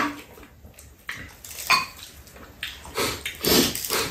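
Mealtime eating sounds: chopsticks and a spoon against ceramic bowls and mouth noises of eating, in a few short bursts with quieter gaps between.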